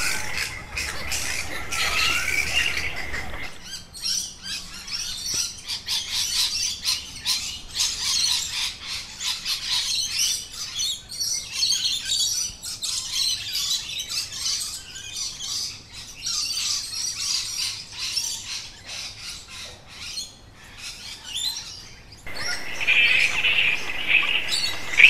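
A flock of birds feeding in a flowering eucalyptus, keeping up a dense chatter of high chirps and squawks. In the first few seconds and again near the end, a different sound takes over: a steady high tone with a few gliding calls.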